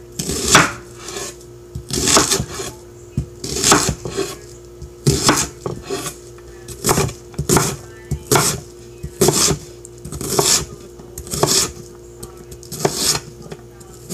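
Chef's knife chopping an onion on a wooden cutting board: sharp knocks of the blade on the board about every second or so, some in quick pairs, over a faint steady hum.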